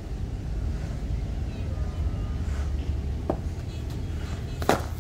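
Cricket bat striking a hard cricket ball with a sharp crack near the end, a fainter knock about a second and a half before it, over a steady low rumble of wind on the microphone.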